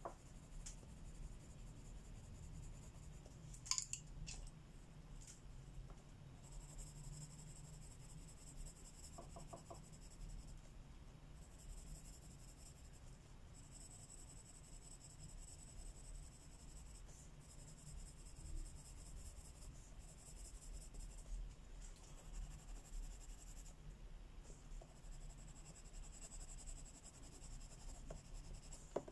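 Coloring strokes on paper: a faint, scratchy hiss that comes in stretches with short pauses, and a sharp click about four seconds in.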